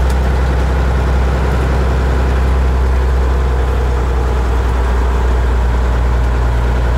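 Heavy truck's diesel engine running at a steady speed under way, a constant low drone heard from inside the cab.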